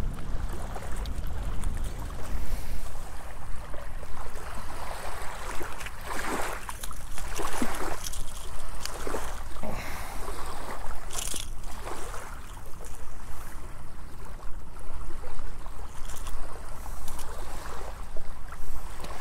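Small waves washing onto a sandy shore, with a steady wind rumble on the microphone underneath. A few short, sharper noises stand out in the middle.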